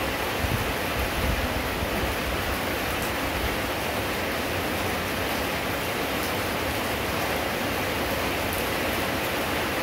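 Steady rain falling, an even rushing hiss with no break, with a few low bumps about a second in.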